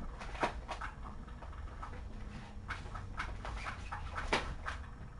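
Kittens moving about and playing: scattered light clicks and taps, a sharper click about half a second in and another just after four seconds, over a steady low hum.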